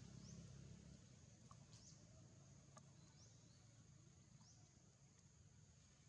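Faint outdoor ambience: a steady high insect hum, with short rising bird chirps every second or two.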